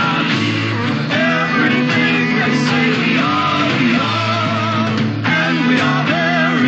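A rock band playing live, with electric guitars, bass and drums, and singing voices holding wavering notes over a steady bass line.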